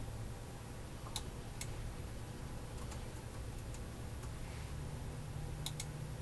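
Faint, scattered computer keyboard and mouse clicks, about ten at irregular times, over a low steady hum.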